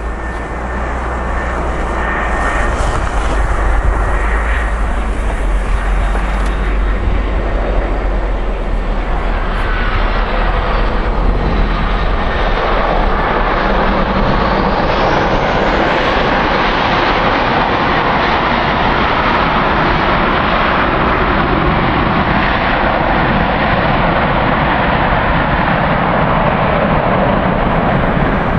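Airbus A320's jet engines running loud and steady on the runway, with a whine rising in pitch about halfway through. Wind buffets the microphone for the first several seconds.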